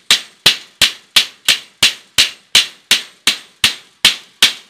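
Hammer driving a nail into the wooden batten of a wire-mesh chicken coop frame, in quick, even, sharp blows, about three a second.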